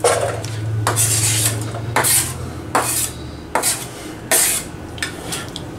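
Kitchenware clattering: a plastic cutting board and dishes being picked up and set down on a kitchen counter, with sharp knocks and scrapes about once a second.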